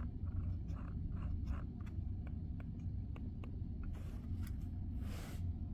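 Scroll wheel of a Logitech Pebble Mouse 2 M350s being rolled, giving quiet, irregular light ticks over a steady low hum. A short hiss comes about five seconds in.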